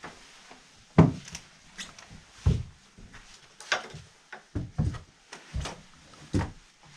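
Boots climbing old wooden stairs, each step landing with a heavy thud on the treads, about eight steps under a second apart. The stairs sound sturdy under the weight.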